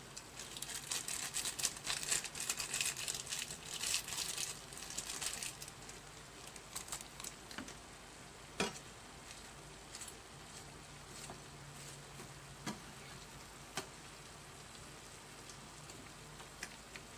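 Pork belly pieces sizzling and crackling in a frying pan as they are turned with a spatula, loudest for the first five seconds or so. After that the sizzle dies down and a few sharp clicks of the spatula against the pan are heard.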